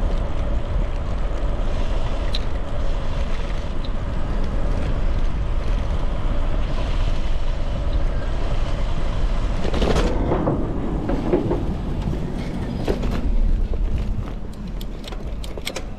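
Bicycle riding along a paved trail: steady rumble of wind on the microphone and tyres on asphalt, with a louder rush about ten seconds in and a few sharp clicks near the end as the noise eases.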